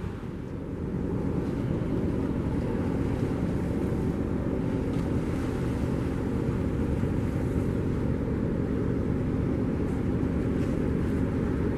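Steady low rumble of wind on the microphone over the distant running of large passenger launches' engines and the water they churn.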